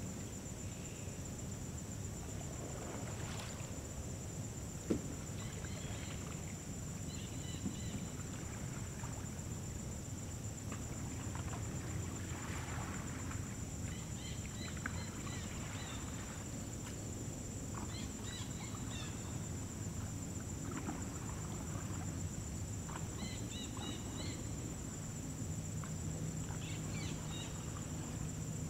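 Lakeshore ambience: a constant high insect buzz and a low wind rumble, with short bird chirps every few seconds and the paddle strokes of a canoe pulling away from shore. A single sharp click about five seconds in.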